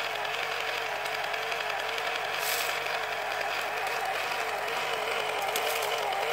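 Small electric motor and gear drive of an H0 model railway running steadily with a wavering whine, with a short hiss about two and a half seconds in.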